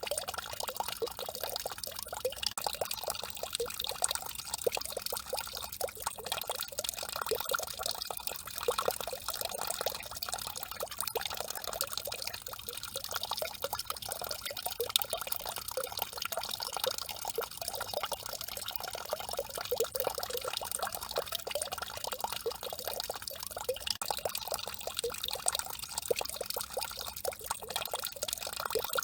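A peeing-statue fountain's stream of water splashing steadily into its basin: a continuous, even patter of small splashes.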